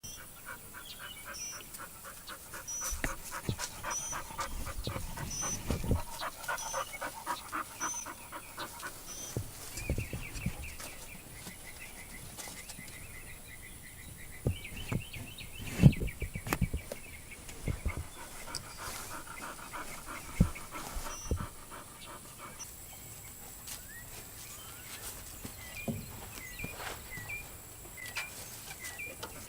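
Animal sounds: short high calls repeated about twice a second through the first several seconds, with rapid rhythmic sound underneath and scattered sharp knocks, the loudest about halfway through.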